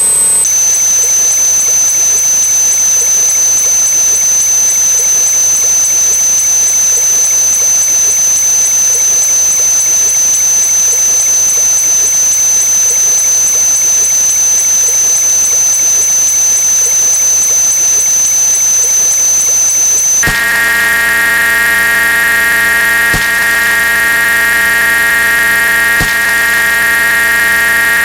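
Huge numbers of repeated sound effects stacked into one loud, continuous electronic drone with a steady high whistle-like tone. About twenty seconds in it switches abruptly to a different buzzing chord of steady tones, with a few faint clicks.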